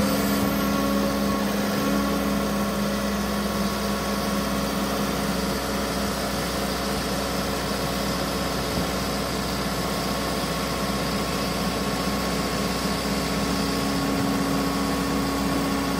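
Excavator diesel engine running steadily, an even hum whose pitch does not change.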